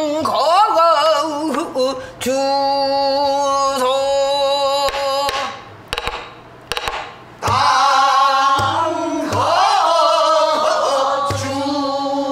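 A woman singing pansori in long, wavering held notes, with her own strokes on a buk barrel drum. The singing breaks off briefly about six seconds in, then resumes.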